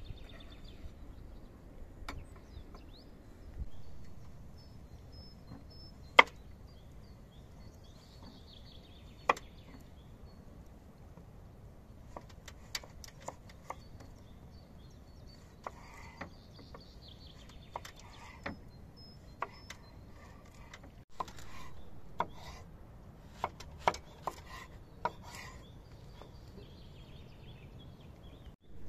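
Chef's knife cutting through zucchini and eggplant and knocking on a wooden cutting board in irregular sharp strokes. The two loudest knocks come about six and nine seconds in, and a quicker run of cuts follows in the second half.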